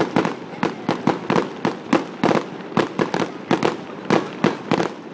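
Aerial fireworks bursting, a rapid, irregular stream of sharp bangs, several a second, each with a short echo.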